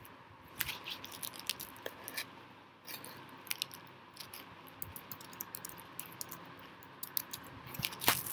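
Typing on a computer keyboard: irregular, quick key clicks, with a louder click near the end.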